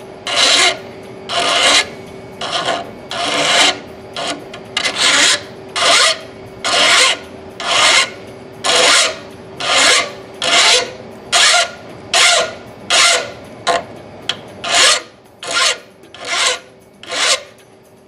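Flat hand file rasping back and forth across the steel tooth edge of a dull oscillating multi-tool blade clamped in a vise, in even strokes a little faster than one a second. The strokes stop shortly before the end. The filing flattens the blade's worn, dipped-down tooth line as a first step in sharpening it.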